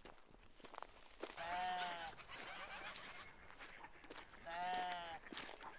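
A goat bleating twice, each call about three-quarters of a second long, with footsteps on a concrete path beneath.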